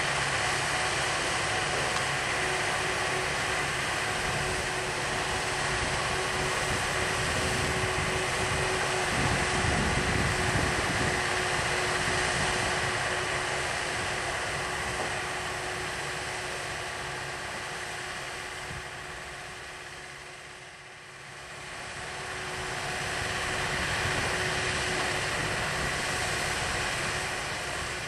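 Diesel engine of a Manitou MRT 1850 rotating telehandler running steadily with a constant hum while the boom is worked. The sound fades about three-quarters of the way through, then swells back.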